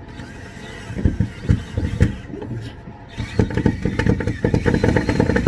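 Ryobi cordless drill driving drywall screws through a steel hinge into the underside of a wooden bed platform: a few short spurts, then from about three seconds in a longer run with rapid clicking as a screw is driven in.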